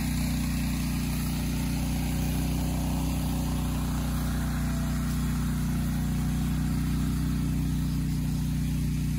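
Gasoline generator engine running steadily at an even speed, a constant low hum.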